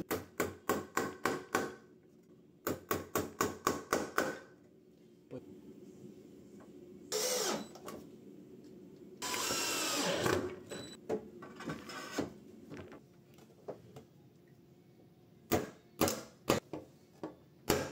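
Claw hammer striking a galvanised steel joist hanger, knocking its hooks into a pine joist: two quick runs of sharp metallic blows, about four a second. A cordless drill then runs in two short bursts, and a few more hammer blows come near the end.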